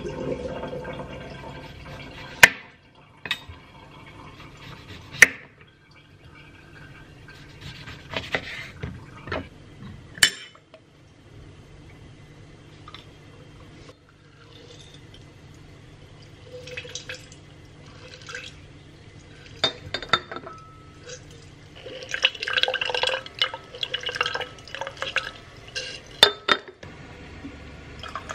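A kitchen knife cutting citrus fruit on a wooden cutting board, with a few sharp knocks of the blade on the board, then small clatters of handling. Near the end, liquid is poured into a tall glass, splashing with clinks of glass.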